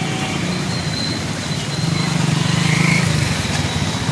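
Motorcycle engines running as the bikes ride through standing water on a flooded road, growing louder about two seconds in as they come closer.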